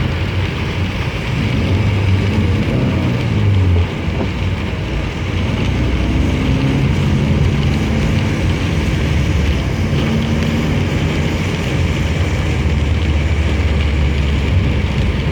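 Steady car engine running with a continuous wash of tyre and water noise, heard from inside the moving car; the engine note shifts a little now and then.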